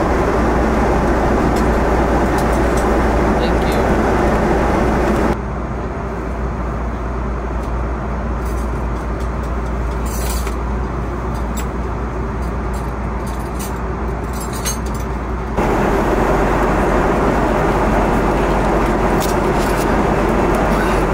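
Steady airliner cabin noise, a broad rushing hiss. It drops abruptly to a quieter, duller level about five seconds in and returns just as abruptly about ten seconds later.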